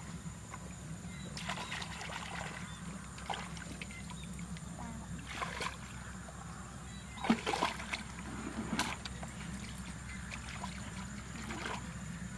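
Shallow muddy water splashing and sloshing while a hoe digs into a wet mud bank and someone wades, with a few short sharper splashes or knocks. The loudest comes about seven and a half seconds in.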